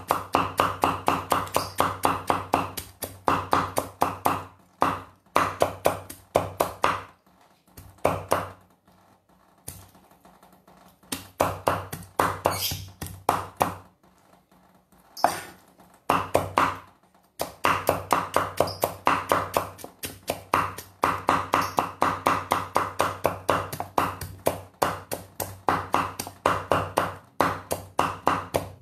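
Cleaver chopping boiled chicken on a thick round tamarind-wood chopping board: rapid, even knocks about five a second, each with a short ringing tone, stopping for a second or two a few times around the middle.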